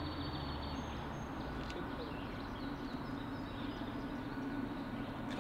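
Songbirds chirping and whistling in short repeated phrases over a steady low rumble.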